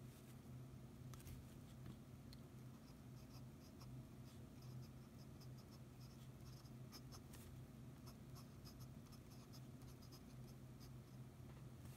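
Fountain pen nib scratching faintly across paper in many short strokes and ticks as it writes, over a steady low hum.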